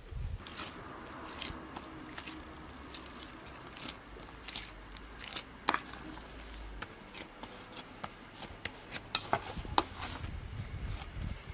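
Hands kneading a soft samosa dough in a stainless steel bowl: irregular squishes with sharp little clicks and taps, a faint hum underneath that stops about two-thirds of the way through.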